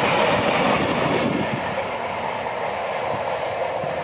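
Class 47 diesel locomotive passing close by: its Sulzer V12 diesel engine running and its wheels running on the rails. The sound is loudest at the start and eases off slightly as it goes by.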